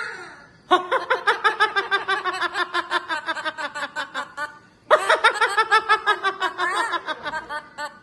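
Blue-fronted Amazon parrot mimicking laughter. It gives two long runs of rapid ha-ha-ha notes, each run sliding slowly down in pitch. The second run starts about five seconds in.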